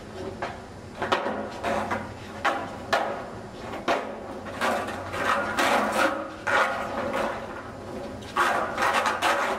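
Skateboard on rough asphalt: wheels rolling, with repeated sharp clacks of the wooden deck as tricks are popped and the board lands and hits the ground.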